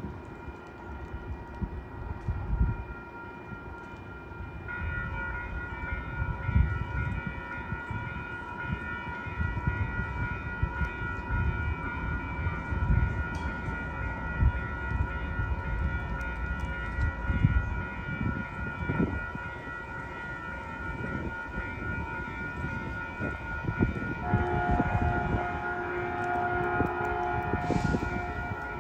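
Railway warning signals sounding as a train approaches: several steady high tones held for long stretches, growing louder about five seconds in, with lower tones joining about twenty-four seconds in. Wind buffets the microphone throughout.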